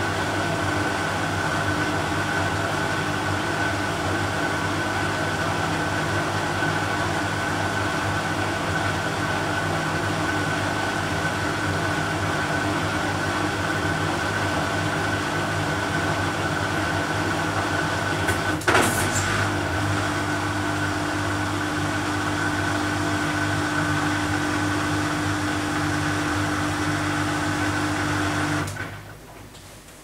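BEKO WMY 71483 LMB2 washing machine running at the end of its rinse program: the ProSmart Inverter motor turns the drum with a steady hum and a high whine. A sharp click comes about two-thirds of the way through and a second steady hum joins it. Everything cuts off about two seconds before the end as the program finishes.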